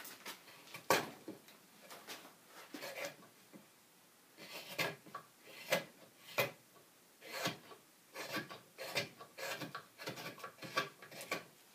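Twca cam (Welsh crooked knife) slicing shavings from a fresh green cherry bowl: a run of short scraping cuts, about one to two a second, with a brief pause a third of the way in.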